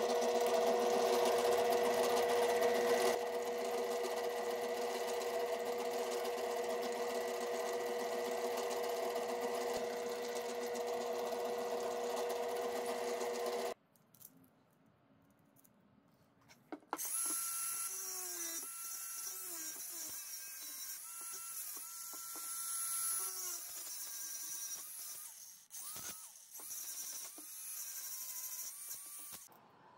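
Drill press running steadily, drilling through a clamped stack of steel strips, for about the first fourteen seconds. After a short pause, a DeWalt angle grinder runs with a high whine whose pitch dips and recovers again and again.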